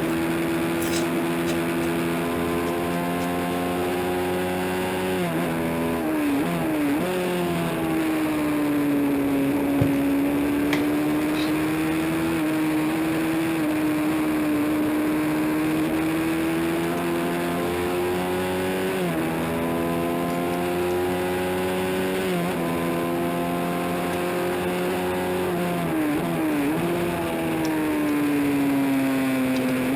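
Honda CB350 parallel-twin race engine running hard, its pitch swelling and sinking with sharp steps several times as gears are changed.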